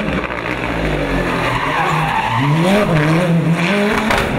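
Mitsubishi Mirage prototype race car cornering hard with its tyres squealing, the engine note dipping and climbing again from about two seconds in, with a couple of sharp cracks near the end.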